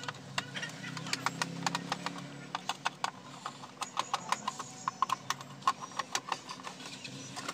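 Irregular clicks and taps of hard plastic wall-clock case parts knocking together as they are handled and fitted by hand, several a second.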